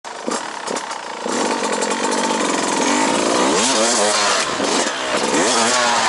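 Dirt bike engine revving as it is ridden, its pitch rising and falling several times with the throttle.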